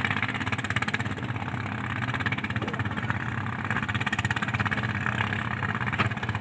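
Small boat engine idling steadily, with an even, rapid pulse.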